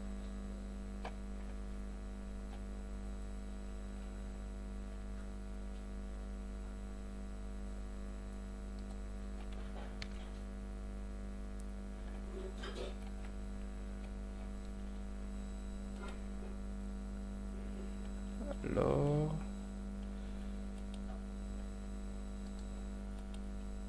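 Steady electrical mains hum in the recording, with a few faint clicks scattered through it and one brief murmur of voice about three-quarters of the way through.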